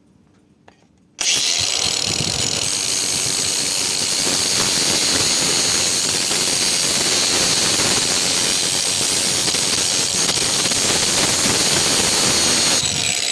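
A power tool running steadily at full speed, starting abruptly about a second in and stopping just before the end, used on the engine block to clean out the cracked area before it is welded again.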